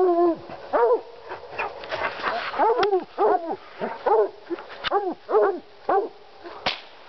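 Black and tan coonhounds barking treed, a chopping bay of single barks that each rise and fall in pitch, about one every half second to a second: the sign that the dogs have a raccoon treed. A few sharp clicks sound among the barks.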